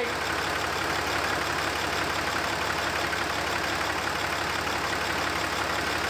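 2007 Dodge Ram pickup engine idling steadily, with the new A/C compressor's clutch engaged, pumping R-134a refrigerant into the system as it is charged.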